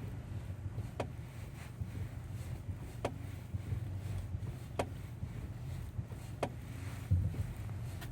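Kia Ceed SW steering knocking: short sharp knocks about once every two seconds, five in all, over a low steady cabin rumble. This is the unexplained knock in the steering wheel.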